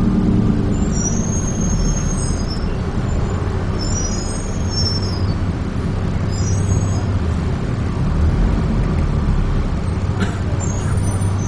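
Interior of a Dennis Trident 2 double-decker bus on the move: steady engine and road rumble, with several short high-pitched squeals over it.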